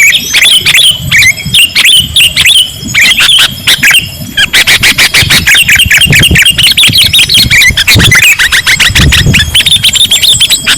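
Sooty-headed bulbuls calling, a dense run of quick, chattering chirps with hardly a pause, recorded loud enough to distort.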